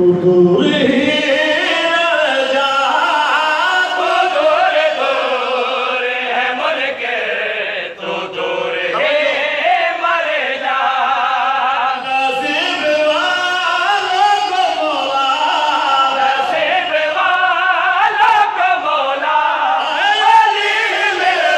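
A man singing a devotional Urdu song in praise of Ali (Haider) into a microphone, in a chanted style with long wavering melodic lines.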